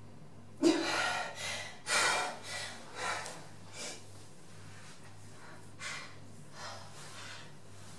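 A young woman gasps sharply, then breathes in ragged, distressed breaths that come fainter and further apart.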